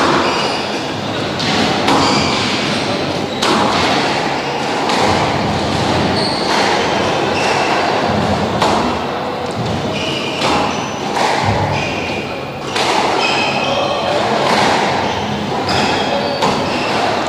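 Squash rally: the hard rubber ball smacking off rackets and the court walls about once every second or two, each hit echoing in the hall, with court shoes squeaking on the floor between shots.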